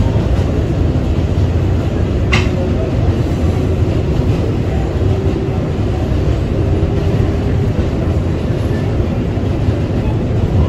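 Kawasaki R188 subway car of the 7 line running between stations, heard from inside the car: a loud, steady rumble of wheels on rail, with a single sharp clack a little over two seconds in.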